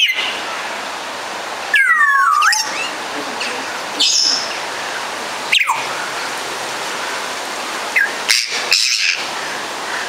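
Congo African grey parrots giving several separate whistled calls: one long whistle sliding down and back up about two seconds in, a short falling whistle around the middle, and a few quick calls near the end, over a steady hiss.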